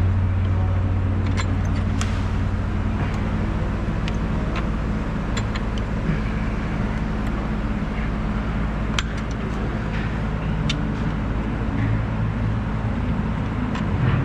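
A car engine running steadily, with a low even hum and scattered light clicks.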